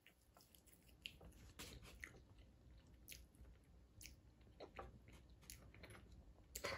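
Faint chewing of a mouthful of breaded chicken: soft, scattered crunches and mouth clicks, with a slightly louder one near the end.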